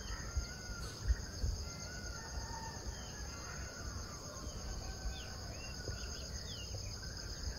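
Faint outdoor ambience: a steady high trill of crickets with scattered short bird chirps over it, and a low rumble underneath.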